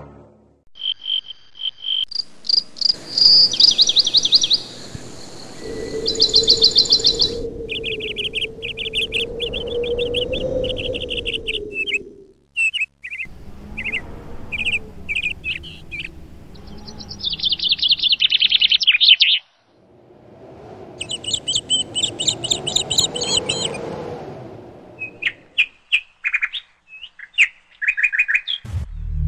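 Birds chirping and calling: varied high chirps and trills in separate stretches that start and stop abruptly, with some insect-like buzzing.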